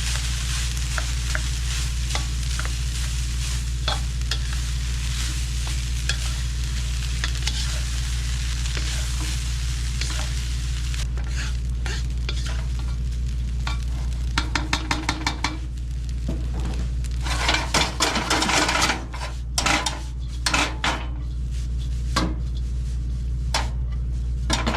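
Day-old cooked rice sizzling in a hot pan while a spatula stirs it, over a steady low hum. About halfway through, the stirring turns busier, with quick ticks and scraping of the spatula against the pan, thickest a few seconds before the end.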